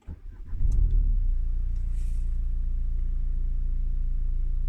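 Car engine starting: a brief crank, catching within about a second with a short flare of revs, then settling into a steady idle.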